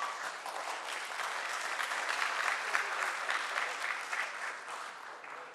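Audience applauding, tapering off near the end, with the last of a ringing bell's tone dying away at the very start.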